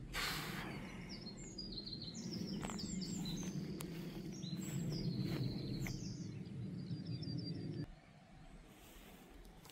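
Small birds chirping and singing in short, quickly repeated phrases, over a steady low rumble that cuts off suddenly near the end. A brief rush of noise comes right at the start.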